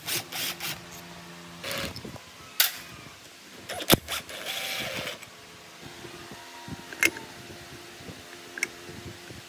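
Metal parts and hand tools being handled on an old Hitachi mortise drilling machine: a scatter of sharp clicks and knocks, with a brief scraping rub about four and a half seconds in.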